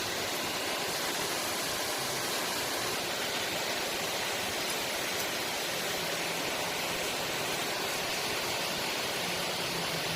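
Cummins X15 (ISX) diesel engine running steadily, heard as a dense, even mechanical noise, with a faint low hum coming in from about six seconds in. The strange noise from its timing gear train is put down to badly adjusted camshaft gears.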